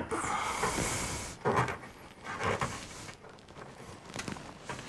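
Rustling and rubbing of the trunk's side carpet and trim as hands work behind the taillight housing, with a few light knocks about one and a half and two and a half seconds in.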